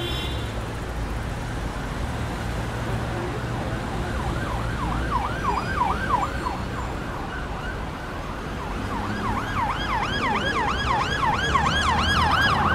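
A siren yelping in rapid rising-and-falling sweeps, about four a second, in two spells: a short one about four seconds in and a longer one from about nine seconds in, over a steady low rumble.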